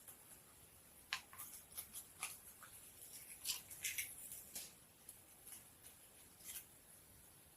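Faint scattered clicks and light ticks, bunched in the middle few seconds: hands breaking Alka-Seltzer tablets and dropping the pieces into a jar.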